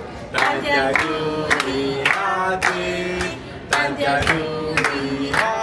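Waiters singing a birthday song together in Italian, holding long notes, with sharp hand claps keeping time.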